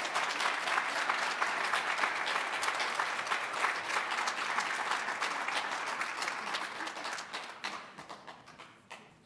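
Audience applauding: many hands clapping in a dense patter that thins out and fades away over the last two seconds.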